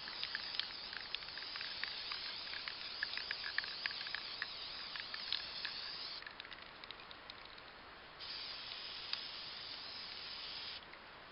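Aerosol spray-paint can spraying in two long hisses. The first runs about six seconds with light ticks through it; after a pause of about two seconds the second runs about two and a half seconds.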